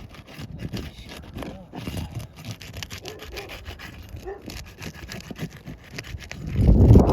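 A metal roofing tool scraping and prying under old asphalt shingles to break their seal strips, in irregular short scrapes and clicks. Near the end, a loud gust of wind hits the microphone.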